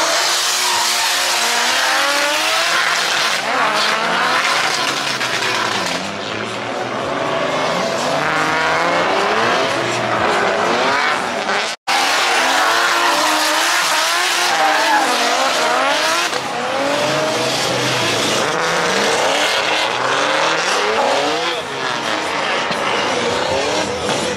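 Drift cars at full throttle: engines revving up and down over a steady howl of tyre squeal. The sound cuts out for an instant about halfway through.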